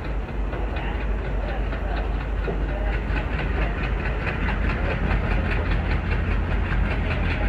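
WDM3A diesel locomotive's ALCO engine chugging under load, with the wheels of an ICF coach running over the rails. A quick rhythmic clatter grows stronger from about three seconds in.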